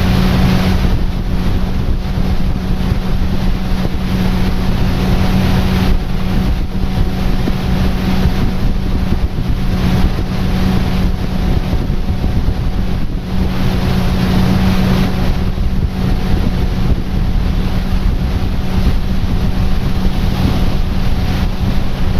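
Tour boat's outboard motor running at a steady speed, a constant hum, with wind buffeting the microphone.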